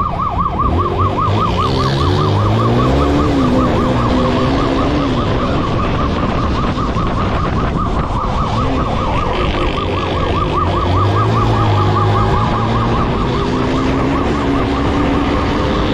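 Emergency-vehicle siren in a fast yelp, rising and falling several times a second, over a vehicle engine that rises and falls in pitch underneath.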